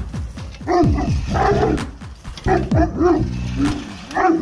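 English Mastiff barking and growling at a push reel lawn mower: a string of about five deep barks, each dropping sharply in pitch, with a drawn-out growl in the middle.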